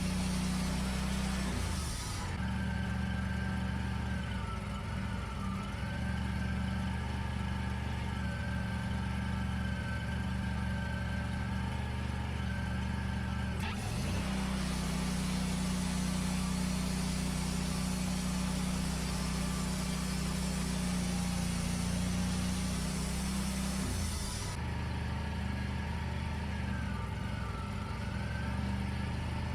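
Wood-Mizer LT40 Wide portable bandsaw mill running steadily under engine power. Its note changes abruptly about 2 seconds in, again about 14 seconds in, and again about 24 seconds in.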